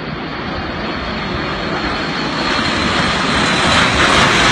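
Jet engines of a formation of aerobatic display jets passing overhead: a steady rushing noise that grows louder as they come closer.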